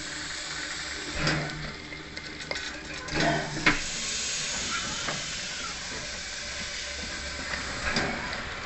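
Small steam tank locomotive hissing steadily as steam escapes from its open cylinder drain cocks, with a few louder puffs of steam.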